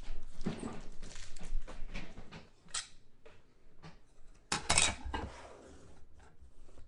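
Hands handling a hard plastic trading-card case: irregular clicks, clatter and rustling, with the loudest burst of clattering about four and a half seconds in.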